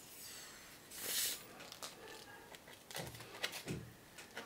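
Faint handling sounds of a plastic glue tube being squeezed onto a foam piece: small ticks and rustles, with a brief hiss about a second in.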